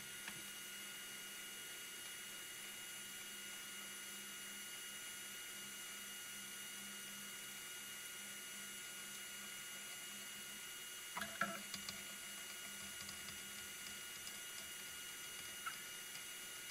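HICTOP AL13-310 3D printer running its automatic bed-leveling routine: a faint, steady hum with thin whining tones, broken by a few short clicks about eleven seconds in and a brief blip near the end.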